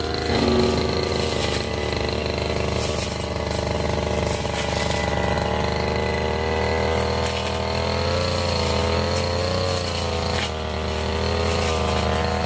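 Petrol brush cutter engine running at a steady speed, its pitch wavering slightly about two-thirds of the way through.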